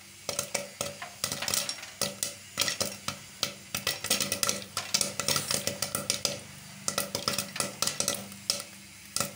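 Popcorn kernels popping in hot oil in a covered pan: irregular sharp pops, several a second, over a low sizzle of frying oil.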